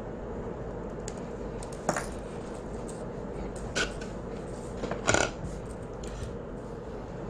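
A few short clicks and rustles of fishing tackle (squid jig, sinker and line on a T-swivel) being handled on a wooden desk, the loudest about five seconds in, over a steady background hum.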